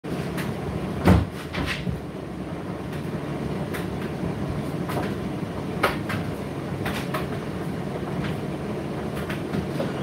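Indesit IDC8T3 condenser tumble dryer running mid-cycle: a steady motor and drum hum, with irregular knocks and clicks from the load tumbling in the drum. The loudest knock comes about a second in, another just before six seconds.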